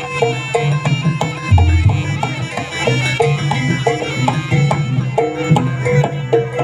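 Jaranan gamelan music: kendang hand drums and gong-chimes playing a quick, even repeating pattern under a held, reedy wind melody.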